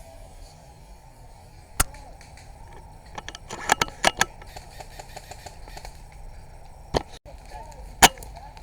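Airsoft guns firing on the field: sharp isolated snaps, with a quick cluster of several about four seconds in and the loudest one near the end, over a low outdoor background.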